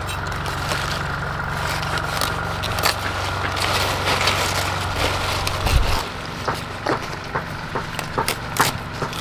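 A small motor running with a steady low hum that stops about six seconds in, just after a low thump. Light clicks and knocks run throughout.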